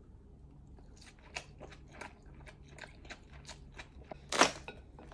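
A person biting and chewing a mouthful of cooked lobster claw meat: soft, irregular wet mouth clicks and smacks, with one louder noise about four and a half seconds in.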